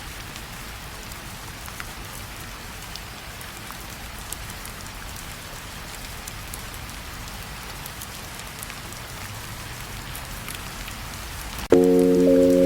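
Steady rain falling, with scattered drops ticking. Near the end a mellow lo-fi track starts suddenly on a held chord.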